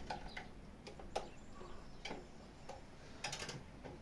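Screwdriver working the terminal screws of a solar inverter's input block: faint, irregular small clicks and ticks, with a quick run of clicks about three seconds in.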